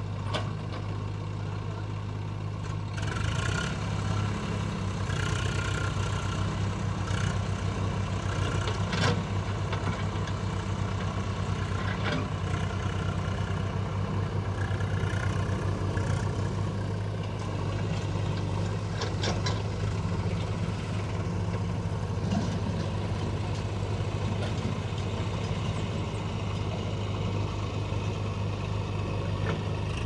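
Diesel engines of a JCB backhoe loader and a tractor running steadily, the engine note stepping up about three seconds in, with a few short sharp knocks from the digging.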